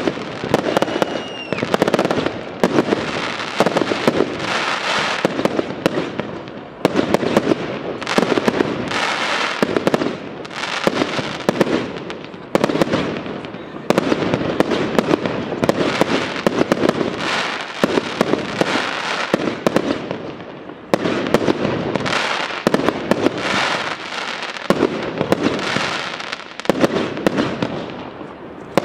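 Professional fireworks display: aerial shells firing and bursting in quick succession, many sharp bangs piled one on another, in salvos a few seconds long with brief lulls between. A short whistle sounds about a second in.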